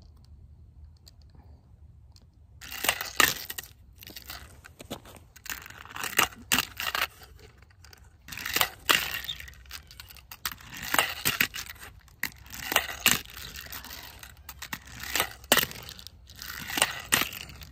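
Tech Deck handboard ridden by hand on hard ground: wheels rolling and scraping, with irregular sharp clacks as the board hits down, starting a few seconds in.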